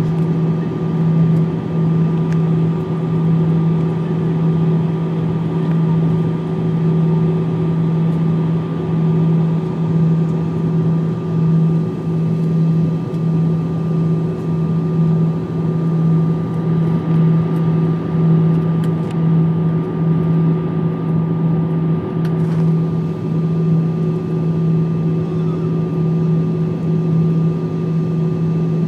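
Cabin noise of an Airbus A319 in flight, heard from a window seat: a loud, steady drone of the jet engines and rushing air, with a strong low hum and fainter steady higher tones.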